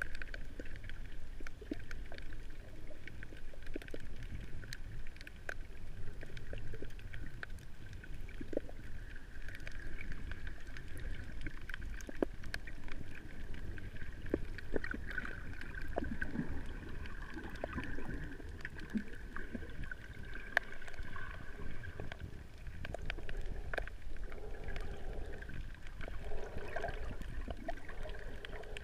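Underwater ambience heard through a GoPro 3 in its waterproof housing: a steady, muffled wash of moving water with a low rumble, and many faint scattered clicks and crackles.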